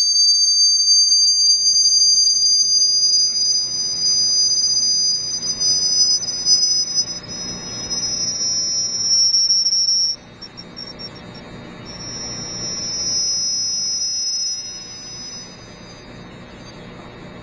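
Two high-pitched electronic tones sounding together and gliding slowly in pitch, the kind of signal applied to a sand-covered Chladni plate to make it vibrate into patterns. The tones draw together and cut off about ten seconds in, then return more faintly for a few seconds.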